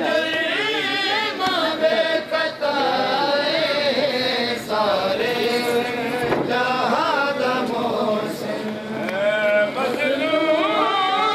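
Men's voices chanting a noha, a Shia mourning lament, in a continuous, rising and falling melodic line.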